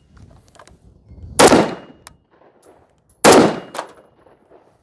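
Two rifle shots from a short-barrelled SIG 5.56 rifle fired semi-automatically, about two seconds apart, each sharp crack followed by a short echo.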